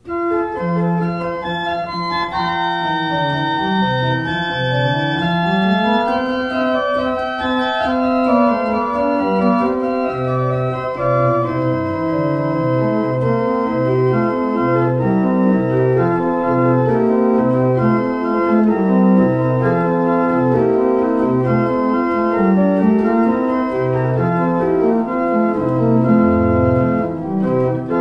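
Church organ playing a piece of sustained chords that begins suddenly. About ten seconds in, a bass line of short, separate low notes starts moving under the held chords.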